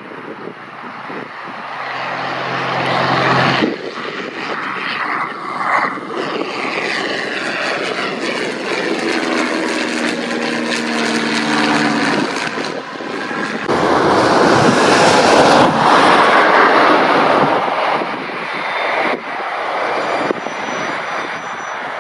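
Gippsland GA8 Airvan's single piston engine and propeller running at power as the plane flies past, the engine pitch sliding down as it passes. Then the engine and propeller are loud up close as the plane taxis by, the sound changing abruptly between shots.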